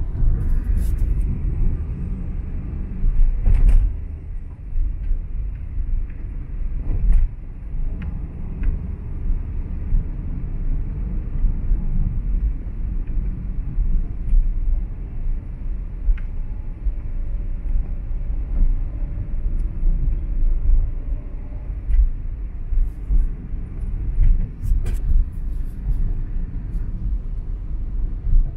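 A vehicle driving on a rainy road: a steady low road rumble, with scattered light clicks and taps.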